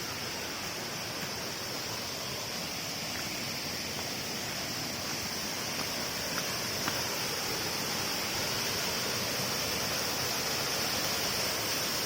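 Waterfall water rushing in a steady, even hiss, slowly growing a little louder, with a steady high-pitched whine above it.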